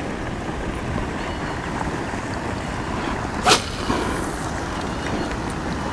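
Steady wind noise on the microphone, with one sharp swish about three and a half seconds in as a spinning rod is whipped forward in a cast.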